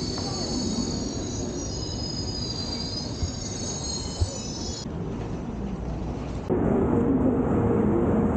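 Train noise at a station platform: a high-pitched, wavering squeal like wheels or brakes on the rails for the first five seconds or so, then a sudden louder, steady hum with a low drone.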